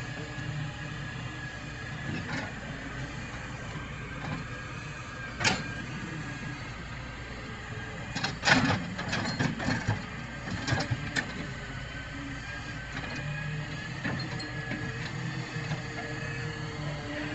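Daewoo Solar 130W-V wheeled excavator running while digging: steady engine hum with a held whine from the machine. One sharp knock about five seconds in, then a cluster of knocks and clanks from about eight to eleven seconds in as the bucket works the dirt and stones.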